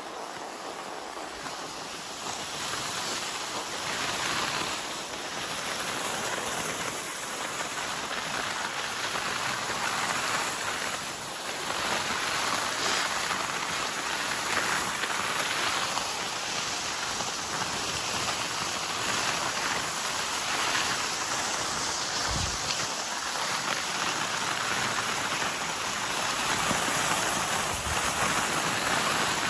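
Cross-country skis gliding in groomed snow tracks: a steady hissing swish of ski bases on snow, swelling a little from time to time.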